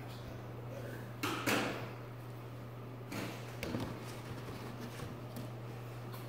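Clear plastic humidity dome being handled and set over a seedling tray: a few short plastic knocks and rattles, the loudest about a second and a half in, over a steady low hum.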